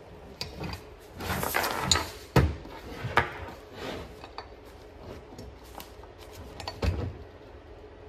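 Hand-operated grommet press punching holes in a vinyl banner: rustling as the banner is moved into place, then a sharp pop as the punch goes through the vinyl about two and a half seconds in, a second click shortly after and another near the end.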